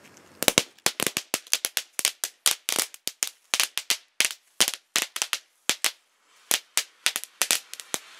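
Small category 1 crackling fireworks going off in a rapid, irregular string of sharp cracks and pops, dozens of them, with a brief lull about six seconds in.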